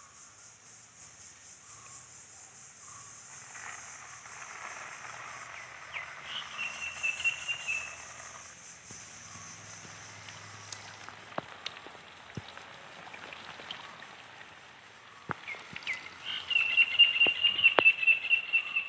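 Outdoor ambience of insects or frogs: a steady high buzz, with a trilling call twice, once about six seconds in and again near the end, and a few sharp clicks.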